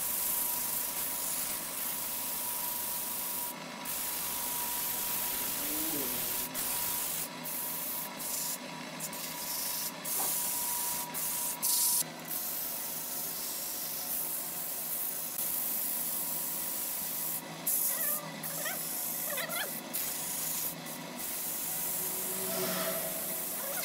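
Hand sanding a spinning turned wooden baluster on a lathe: a steady hiss of sandpaper rubbing on the wood. A thin steady whine runs with it and stops about halfway through.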